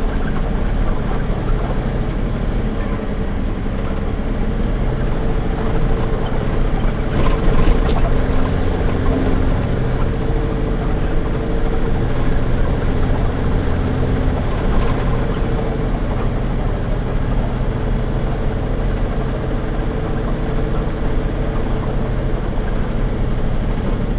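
Diesel engine of a heavy truck-and-trailer running steadily under load up a gravel road, heard from inside the cab with tyre and gravel noise. There is a brief clatter about seven seconds in.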